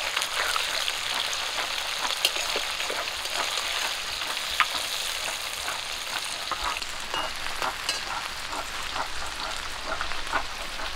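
Small tangra fish sizzling and crackling as they deep-fry in hot mustard oil in a metal karai, turned with a spatula.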